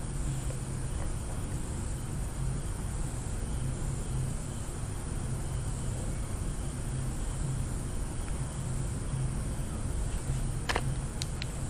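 Steady background hiss with a low hum, with a few short clicks near the end.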